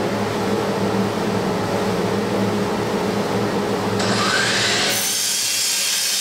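An electric power tool running steadily with a motor hum. About four seconds in, a harsher, hissier sound joins, as the tool starts working the material.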